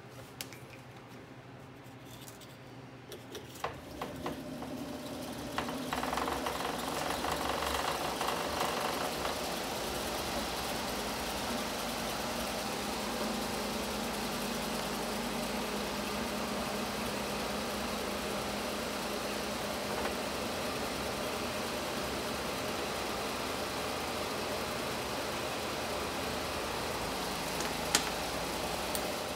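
A 12-volt electric cooling fan, wired straight to a car battery with test leads, comes up to speed about four to six seconds in after a few clicks of the leads being connected. It then runs steadily with an even hum. There is one sharp click near the end.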